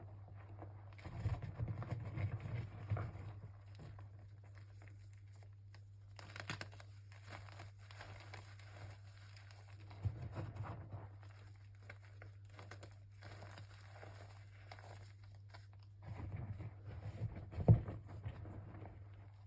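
A box of Easy Grip gym chalk being handled: crinkling and tearing in three short spells, with a sharp knock near the end, over a steady low hum.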